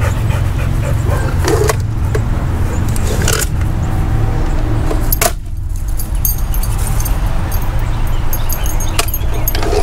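Light metallic jingling over a steady low rumble, with a few sharp knocks; the loudest knock comes about five seconds in.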